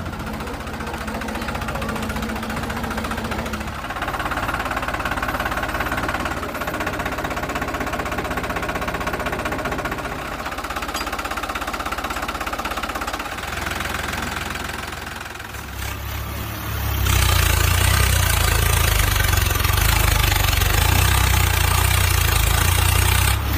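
Tractor engine running steadily with a fast knocking beat, getting louder and heavier about two-thirds of the way through.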